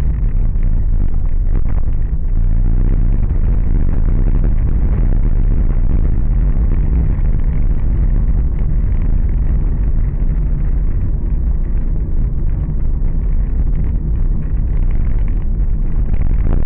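Car driving on a rough, patched asphalt road: a steady, loud low rumble of engine and tyre noise picked up by the car's camera microphone.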